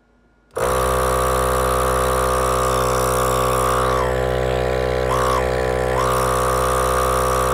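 Reassembled ARB 12-volt air compressor running on a no-load bench test, starting about half a second in and then running at a steady, even speed. The motor and piston pump sound pretty good: the compressor runs healthily with nothing to pump against.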